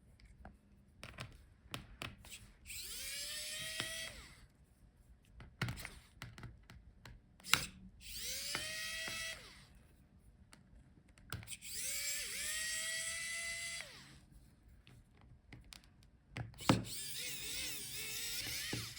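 Electric precision screwdriver backing out small laptop battery screws. Its motor whines in four separate runs, each rising in pitch as it spins up, with light clicks of the bit and screws between runs.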